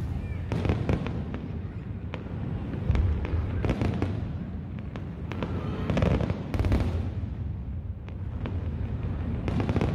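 Aerial fireworks bursting one after another: repeated sharp bangs and crackling over a steady low rumble, with louder clusters of bursts about a second in, in the middle and near the end.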